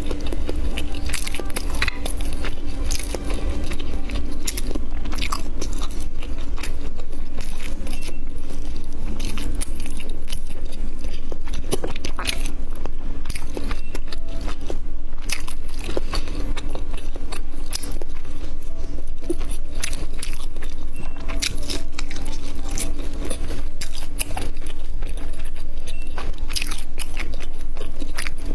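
Biting and chewing of crispy fried spiral-cut sausages, with many sharp crunches throughout.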